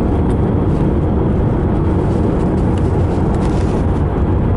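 Steady road and engine noise heard from inside a moving car, with a deep, even rumble.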